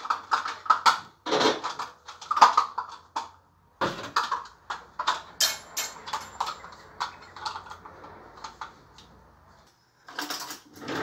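Quick clicking and clattering of kitchen items being handled at the counter, such as a mug and a plastic yogurt tub. It thins to a light rustle with scattered clicks partway through, pauses briefly, then clatters again near the end.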